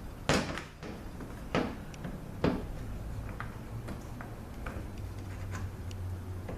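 Sharp metallic clicks and taps of hand tools and small bolts while bolts are taken out to free the lead frame from a Ford 6R80 transmission valve body. There are three louder clicks in the first two and a half seconds, then scattered fainter ticks.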